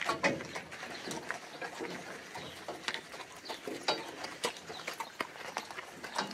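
Two-horse carriage moving at a walk on a dirt track: the horses' hoofbeats with irregular clicks and knocks from the harness and carriage.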